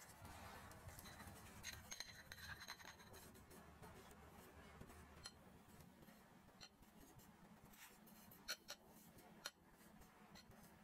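Faint scraping of a metal cake spatula spreading whipped cream over a cake, with scattered light clicks and a few sharper clicks near the end.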